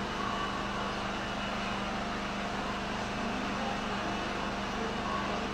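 Steady machine hum with a hiss underneath, unchanging throughout.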